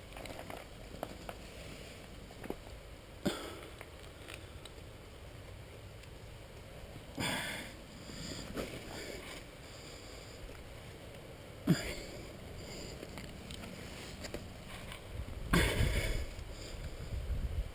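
A boulderer's breathing close to the camera: short, hard breaths and sniffs every few seconds as he climbs. A sharp knock comes about two-thirds of the way through, and a longer, louder breath follows near the end.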